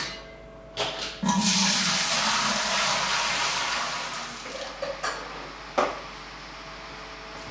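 Water pouring into a metal sparge-water heater. It starts suddenly about a second in, rushes loudly for a few seconds, then tapers off. Two sharp knocks follow near the end.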